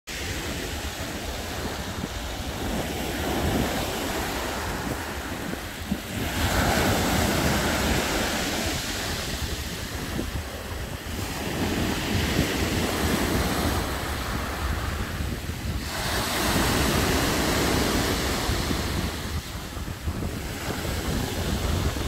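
Black Sea surf breaking on the shore, the wash swelling and falling back every few seconds. A steady low rumble of wind buffets the microphone underneath.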